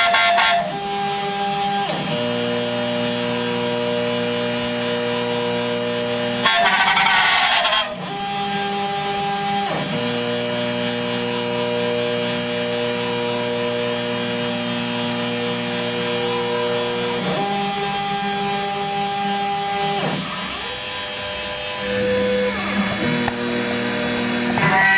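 CNC router's stepper motors whining as the axes move. Steady multi-tone whines change pitch every few seconds with short gliding ramps as the moves speed up and slow down, with a busier, rapidly shifting stretch about seven seconds in.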